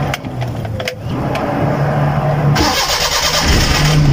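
Starter cranking the cold Suzuki Mehran's three-cylinder engine, with a brief drop and a few clicks about a second in before it cranks again. Near the end the sound turns deeper and louder as the engine catches.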